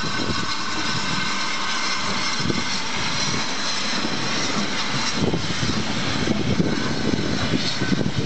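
BR Standard Class 9F 2-10-0 steam locomotive 92203 'Black Prince' moving past close by, a loud steady hiss of escaping steam over the uneven rumble of the engine and its exhaust.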